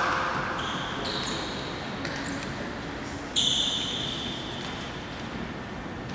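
Reverberant gymnasium ambience with a few light knocks and several high, steady squeaks, the loudest held for over a second about three and a half seconds in.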